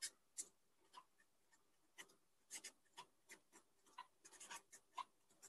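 Black marker pen writing on paper: faint, short, irregular strokes as the words are written.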